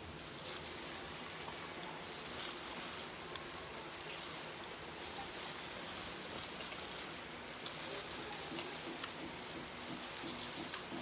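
Eating fried chicken and rice: chewing and mouth smacks with small clicks and crinkles of a plastic-gloved hand picking food off a plate, over a steady background hiss. The chewing turns rhythmic toward the end.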